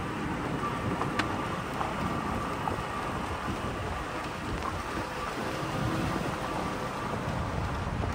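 Toyota Tacoma's tyres rolling slowly over a dirt and gravel trail, a steady crunching, rustling noise.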